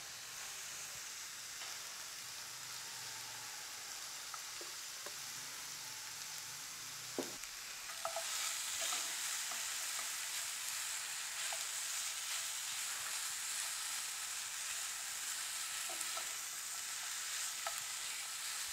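Sliced vegetables sizzling in oil and margarine in a frying pan, turned with a spatula that scrapes against the pan. The sizzle grows louder about eight seconds in, just after a small knock.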